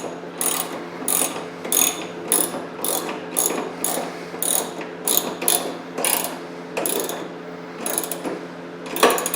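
Ratchet wrench clicking in short, regular back-and-forth strokes, about two a second, as a bolt is run in and tightened on a snow blower being assembled. A faint steady hum runs underneath.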